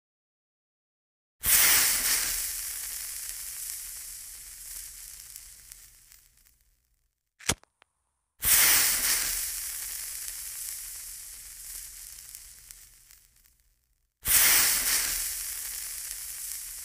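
Hissing, crackling sound effect of flames: three times a burst starts suddenly and dies away over several seconds, with a short sharp click just before the second burst.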